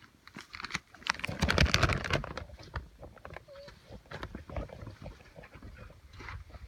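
Boots and clothing scuffing and scraping against granite as a climber works down a narrow rock crack, loudest for about a second just after the start, then fainter. There is a brief high whine about three and a half seconds in.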